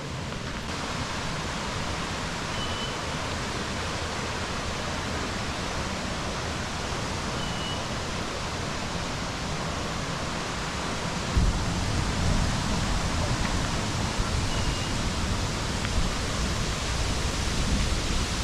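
Steady rushing of water falling at a waterfall, an even hiss with no break. About eleven seconds in, a heavier low rumble sets in abruptly and continues.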